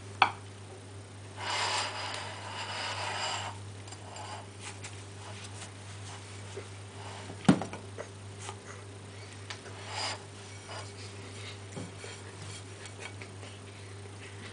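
Cat rubbing and pawing against pears in a fruit bowl: a rustle of fur against fruit for about two seconds, a shorter one later, and scattered small ticks, with two sharp knocks of fruit shifting in the bowl, the louder about halfway through. A steady low hum runs underneath.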